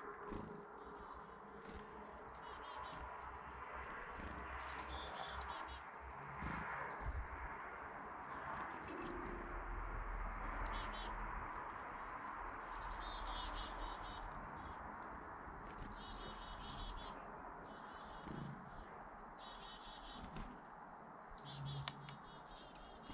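Small songbirds at backyard seed feeders chirping and calling, many short high notes and quick falling chirps throughout, over a steady background hiss.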